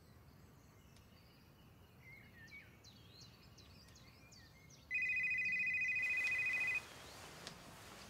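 A phone ringing: one trilling two-tone ring of about two seconds, starting about five seconds in, after a few soft bird chirps over quiet outdoor ambience.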